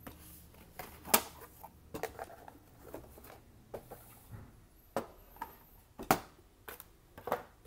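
Unpacking noise: a cardboard box being opened and a sheet-metal power supply cabinet handled and set down on a table, heard as a string of irregular knocks, clicks and rustles, with the two sharpest knocks about a second in and about six seconds in.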